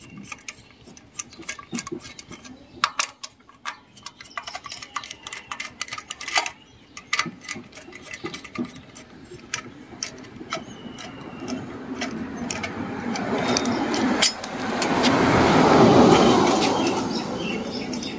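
A screwdriver undoing the screws of a portable generator's alternator end cover: scattered small metallic clicks and ticks. Over the second half a broad rush of noise builds up, is loudest a couple of seconds before the end, then eases.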